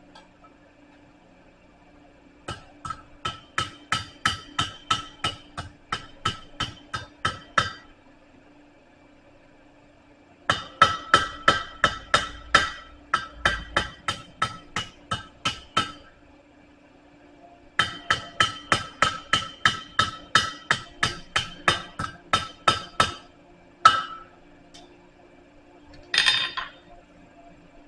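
Blacksmith's hand hammer striking hot steel on the anvil to bend it, in three runs of blows at about four a second with a bright ring on each hit. A single blow and a short clang come near the end.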